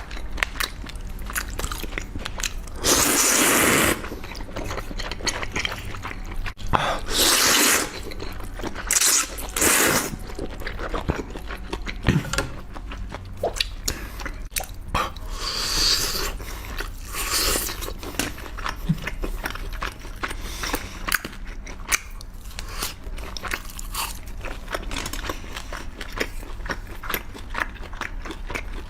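Close-miked eating: repeated bites and chewing with crunching, clicking mouth sounds, and about five louder bites of roughly a second each spread through.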